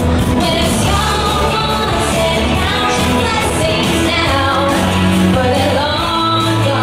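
Pop song with a singing voice over steady bass notes.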